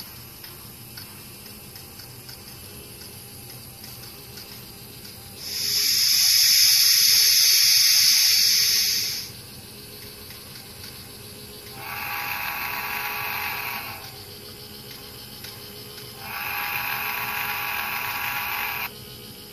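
Sound decoder of an N scale Norfolk & Western 611 steam locomotive model playing through its small onboard speaker: a loud steam hiss lasting about four seconds, then two steady whistle blasts a few seconds apart, the second slightly longer. A faint low hum runs underneath.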